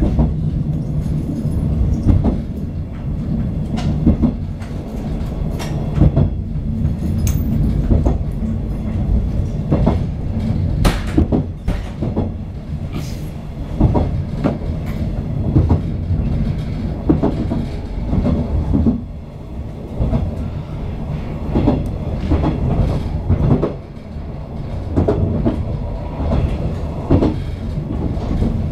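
JR 485 series electric train running along the track, heard from inside the rear car: a steady low rumble with irregular sharp clicks of the wheels over rail joints.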